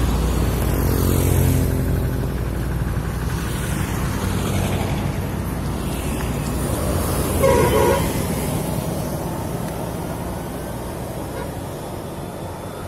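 A heavy bus passes with its engine rumbling, the rumble fading over the first few seconds. About seven and a half seconds in comes one short horn toot.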